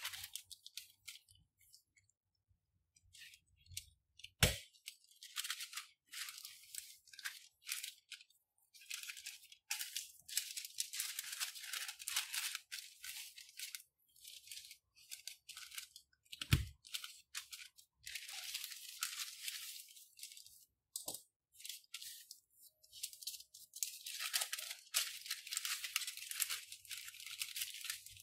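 Parchment paper rustling and crinkling in bursts as it is folded and pressed flat by hand, with three sharp clicks, the loudest about four seconds in.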